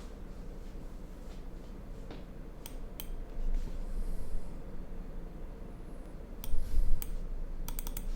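Rustling handling noise over a low hum, with a few sharp clicks: two single clicks, then a quick run of four near the end.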